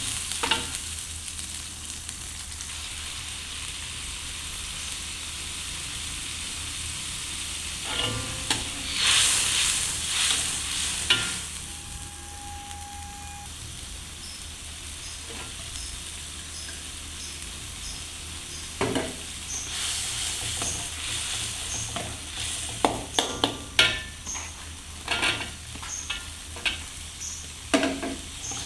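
Food sizzling in a hot pan with a steady hiss while it is stir-fried, a cooking utensil scraping and knocking against the pan in bursts, busiest in the second half.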